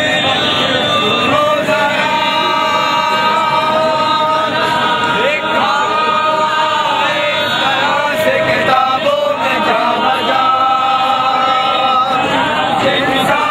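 A group of men chanting a noha, a Shia Muharram lament, in chorus, holding long notes together.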